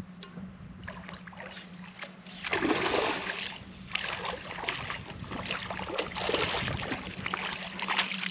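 A hooked black drum splashing at the water's surface as it is reeled toward the bank, in several separate bursts of splashing.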